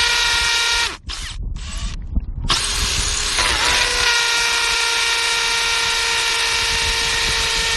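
Electric power drill boring into old, hard concrete, its motor running at a steady pitch. It stops about a second in, gives a couple of short bursts, then starts again and runs on steadily with a slight dip in speed as it bites.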